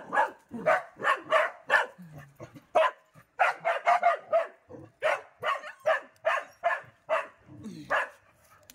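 Dog barking in quick runs of short barks, about three a second, broken by a couple of brief pauses.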